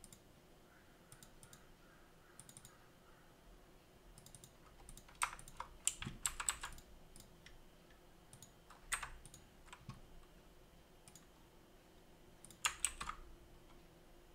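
Computer keyboard keys clicking in several short bursts of typing separated by pauses.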